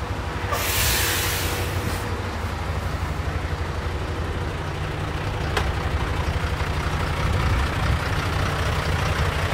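Fire engine's diesel engine idling with a steady low rumble. A loud hiss of air comes about half a second in and lasts over a second, with a single click in the middle.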